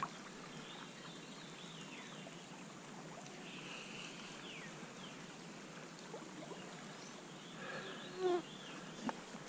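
Steady flow of a shallow woodland stream, with a few short high falling chirps over it and a brief louder sound about eight seconds in.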